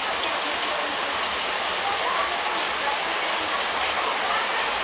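Heavy rain falling steadily, an even downpour hiss.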